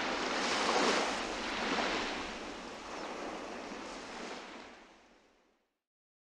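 Ocean surf: a rushing wash of waves that swells and ebbs, then fades out about five and a half seconds in.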